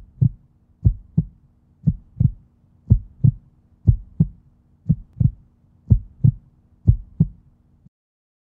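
Heartbeat sound effect: paired lub-dub thumps about once a second, eight beats in all, over a faint steady hum, stopping just before the end.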